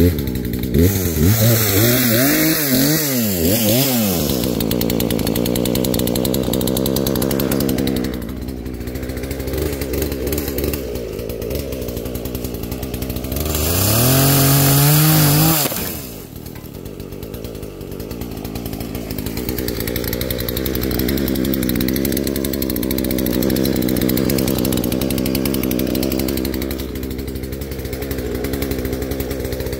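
Poulan Pro 18-inch two-stroke gas chainsaw just started and blipped up and down several times. It then runs at a lower speed and is revved hard for about two seconds in the middle as it cuts through a sapling. After that it drops back and keeps running steadily.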